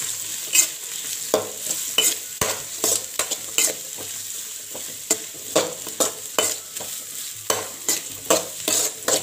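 Steel spoon scraping and knocking against a wide metal pan as sliced onions and curry leaves are stirred in hot oil to soften them. The spoon strokes come about twice a second over a steady sizzle.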